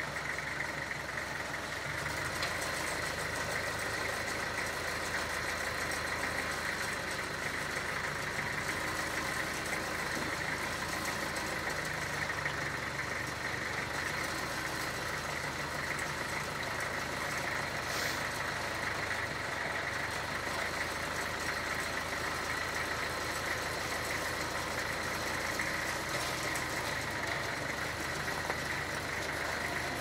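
Kubota M9000 tractor's diesel engine running steadily at idle, a little louder from about two seconds in.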